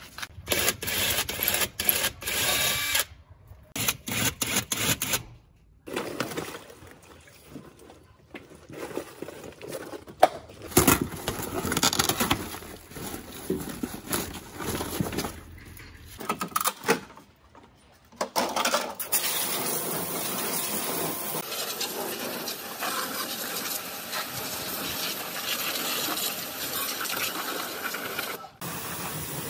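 Irregular rustling, ripping and knocking as old seat upholstery and a rotted floor covering are pulled out of a car body, broken by several abrupt cuts. About two-thirds of the way in, a pressure washer starts spraying water onto the stripped sheet-metal floor in a steady hiss.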